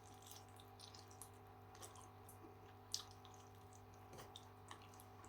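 Faint wet chewing and small mouth clicks of a man eating a chicken wing coated in hot sauce, with one sharper click about three seconds in.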